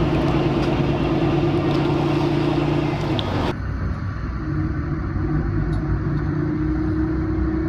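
A heavy vehicle engine runs steadily at a constant pitch. About halfway through, the sound abruptly turns duller and slightly lower.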